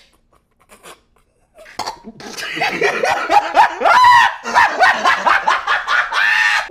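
A man laughing hard in rapid, high-pitched bursts. It starts a little under two seconds in, after a near-silent pause.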